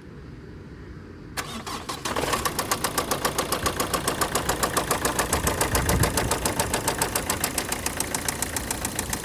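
Opel 1.7 CDTI (Z17DTL) four-cylinder turbodiesel started about a second and a half in, catching and settling into idle, with a rapid, even knock running through it. This is the engine knock under suspicion.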